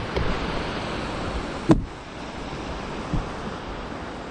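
Fast river current rushing as a steady hiss where the water speeds up toward a small rapid, with a single sharp knock about halfway through and a fainter one near the end.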